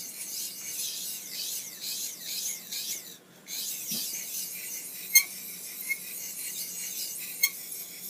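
Knife blade being rubbed in circles on an oiled sharpening stone: a steady, gritty scraping in repeated strokes that stops for a moment about three seconds in. Two sharp clicks come later on.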